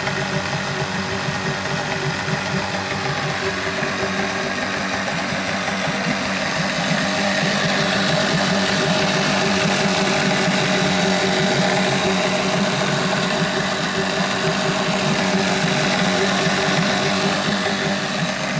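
Mercury outboard motor running clamped in a test barrel of water, a steady dirt-bike-like buzz that gets a little louder about six seconds in.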